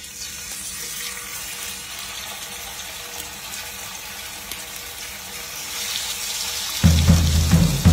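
Steady rushing hiss of running water. Music with a heavy bass beat comes in near the end.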